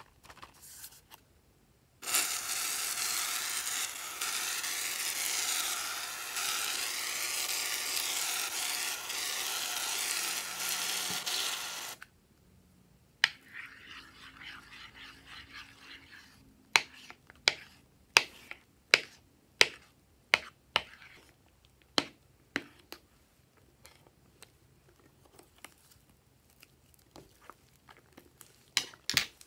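Aerosol can of Figaro shaving foam spraying in one long, steady hiss for about ten seconds. Then a hand squishes the foam into the slime, with soft rustling and a run of sharp, wet pops about every half second to second.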